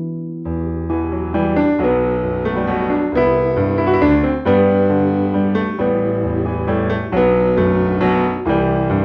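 Background music: a piano melody over a steady bass line, with the bass coming in about half a second in.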